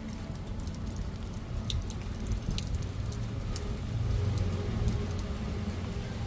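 Rain pattering on a wet brick patio, with scattered sharp drops close by and a low rumble that swells about four seconds in.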